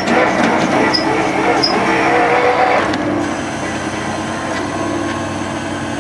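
Truck-mounted borewell drilling rig running steadily while drilling, its engine a continuous drone. The sound is a little louder for the first three seconds and then eases slightly.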